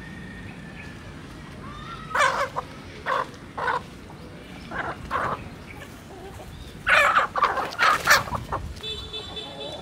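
A flock of chickens, roosters among them, clucking and squawking while they feed. The calls come in short bursts about two, three and five seconds in, with a louder cluster from about seven to eight and a half seconds.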